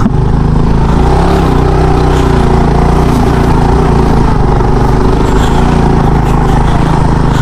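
Small motorcycle engine running steadily while riding, with a constant noisy rush from the ride over it.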